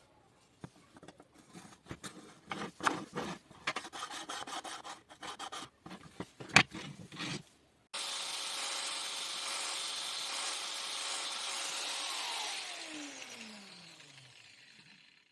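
Irregular scraping and knocking for about seven seconds. Then the homemade disc sander's 775 DC motor switches on abruptly and runs steadily for about four seconds. It is switched off and coasts to a stop, its whine falling steadily in pitch.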